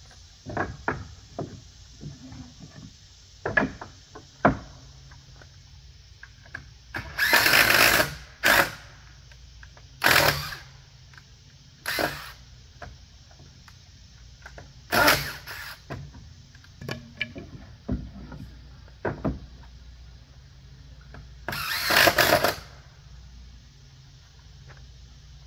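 Cordless drill driving screws into wooden deck railing balusters in about six short bursts of a second or so each, the last one the longest. Lighter knocks and clicks of wood and tools fall between the bursts, most of them in the first few seconds.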